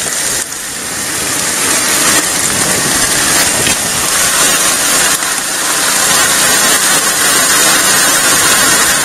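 Water rushing steadily down a highbanker's sluice box, washing gravel over the riffles and expanded metal.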